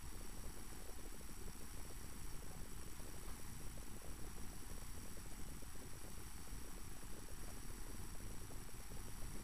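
Steady electrical hum and hiss with no distinct events: the noise floor of a transfer of silent 8mm home-movie film.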